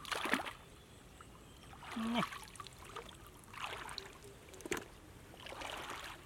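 Shallow muddy water splashing and sloshing as hands grope through it and legs wade in it, in about five separate short splashes.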